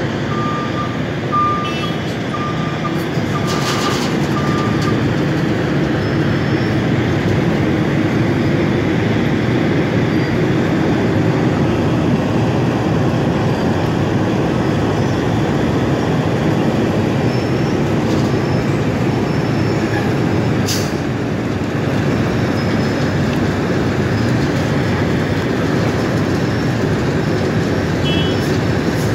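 Wirtgen cold milling machine running steadily as it grinds up the asphalt road surface, a heavy low drone of diesel engine and cutting drum. A truck's reversing beeper sounds for the first five seconds, and two short hisses of air come about four and twenty seconds in.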